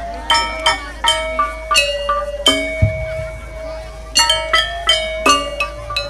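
Gamelan metallophones struck with mallets, ringing metallic notes in a quick, uneven melodic run over a long held tone. There is a single low stroke just under three seconds in.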